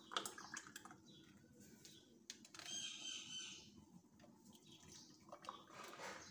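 Thick beetroot and banana milkshake poured from a blender jar into glass tumblers: faint pouring and splashing of liquid, with a few light clicks.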